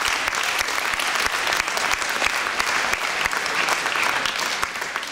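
Audience clapping: dense, steady applause that thins out near the end.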